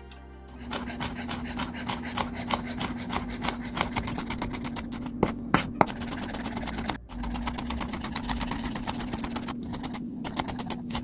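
Santoku knife rapidly slicing bell peppers into strips on a wooden cutting board: quick, repeated knocks of the blade against the board over a steady low hum. The chopping drops out briefly about seven seconds in, then resumes.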